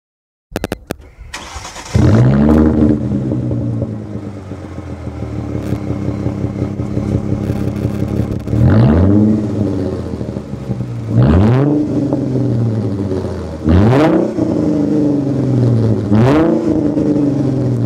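Mercedes-Benz C240's V6 starting through a straight-pipe exhaust with no resonator or mufflers from the catalytic converters back: a brief crank, the engine catching about two seconds in with a rev flare that settles to a loud idle. Four quick throttle blips follow, about two and a half seconds apart.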